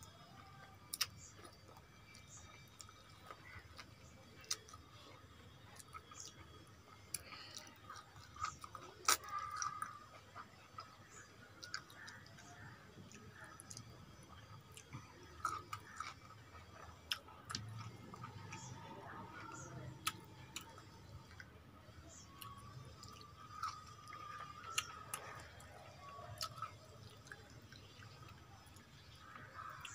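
Close-miked chewing of rice and rohu fish curry eaten by hand, with scattered sharp clicks and soft wet sounds of the mouth and of fingers mixing rice on the plate.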